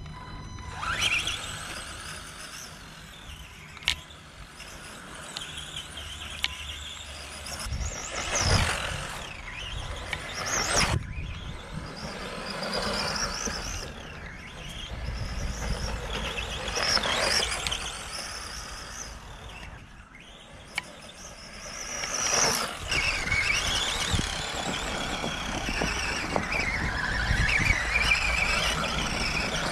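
The electric motor and drivetrain of a Schumacher Top Cat 2WD RC buggy whining up and down as it accelerates, brakes and turns on grass, the pitch rising and falling with each burst of throttle. A single sharp click sounds about four seconds in.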